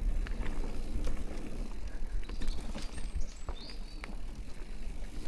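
Electric mountain bike rolling over a dirt trail: a steady low rumble of tyres and movement, with frequent sharp rattling clicks and knocks from the bike over roots and stones. A couple of short high chirps come through in the middle.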